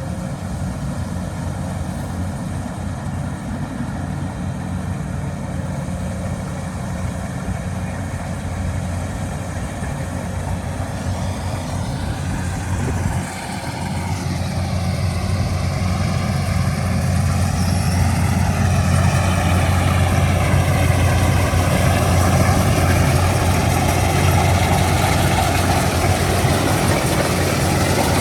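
An engine running steadily with a low hum. About thirteen seconds in it dips briefly, then comes back louder and stays louder.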